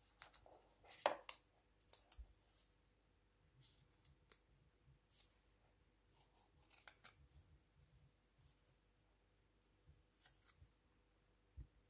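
Faint scattered scrapes and taps of fingers working an Apple AirPods charging case out of its cardboard box insert and handling it, the loudest scrape about a second in.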